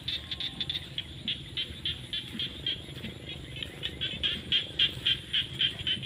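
Frogs calling: a chorus of short, high, repeated calls about three a second, growing louder in the last two seconds, over a steady low rumble.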